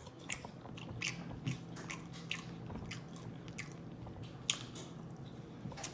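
Close-miked open-mouth chewing of takeout food, with sharp, irregular wet smacks of the lips and mouth.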